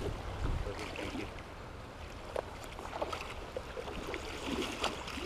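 Shallow creek water running, with a few brief splashes from a hooked steelhead thrashing at the surface as it is played toward the landing net.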